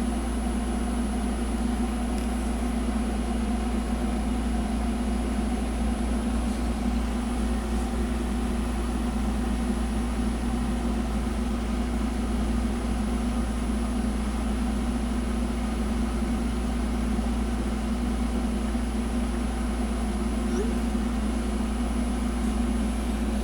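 A steady low machine hum with no change in level. A faint high whine fades out about seven seconds in.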